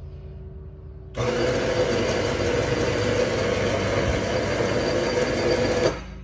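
Ceiling-mounted electric hoist motor running as it winds up its hook cable, a steady whir with a strong steady tone. It starts suddenly about a second in and cuts off just before the end.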